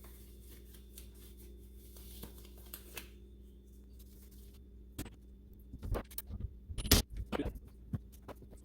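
Scattered light clicks and taps of tools and small parts being handled at a workbench over a steady low hum, busiest from about five seconds in, with the sharpest click near the end.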